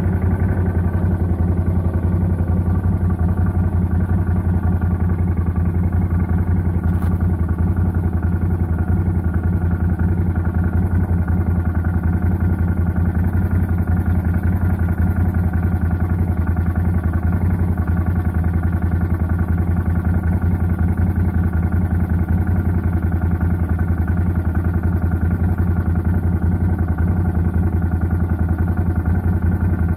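CF Moto 850 quad's V-twin engine running steadily at low, even revs, heard close up.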